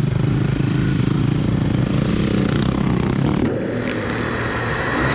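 A UTV (side-by-side) engine running, dipping a little about three and a half seconds in.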